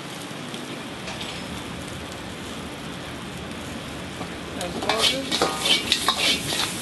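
Lobster pieces sizzling in a hot wok. About two-thirds of the way in, a metal ladle and spatula start scraping and clattering against the wok in quick, uneven strokes as the pieces are stir-fried with the spiced salt.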